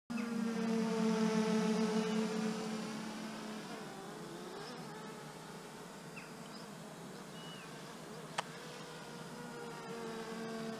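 Ruko F11GIM2 quadcopter drone's propellers buzzing in flight. The buzz is loud for the first couple of seconds, fades as the drone moves away, and grows louder again near the end. A single sharp click comes about eight seconds in.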